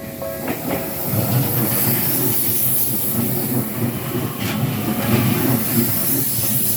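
Tokyu Tamagawa Line electric commuter train passing over a level crossing: a steady rumble with a high hiss and a few clacks of the wheels over the rail joints. The crossing bell rings briefly at the start before the train drowns it out.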